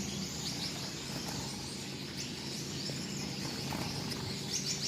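Gouldian finches in an aviary giving soft, short, high chirps, a few scattered calls over a steady low hum.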